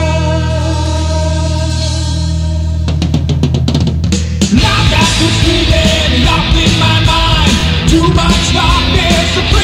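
Progressive/power metal band recording: a held chord rings for about three seconds, drum hits follow, and the full band with drum kit comes in at about four and a half seconds.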